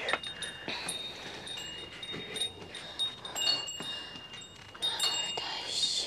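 Small bells tinkling irregularly in short high rings, with light knocks among them.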